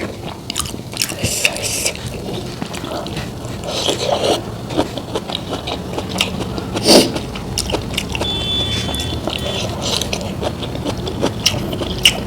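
Close-miked eating: chewing and crunching with scraping sounds, a string of irregular short crunches and clicks, with one louder crunch about seven seconds in.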